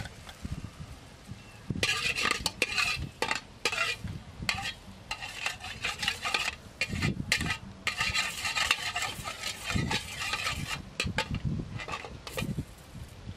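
Metal ladle stirring in a metal cooking pot, scraping and clinking against the sides in repeated bursts, starting about two seconds in.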